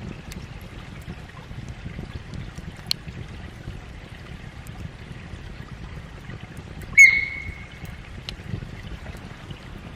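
A single sharp metallic clink about seven seconds in, ringing briefly with a clear high tone, over a low background rumble and scattered faint ticks.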